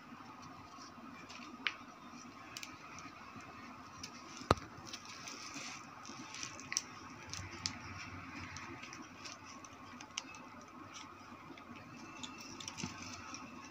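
Scattered light clicks and taps from handling small metal and plastic parts while working on a pedestal fan motor, with one sharp click about four and a half seconds in, over a faint steady background.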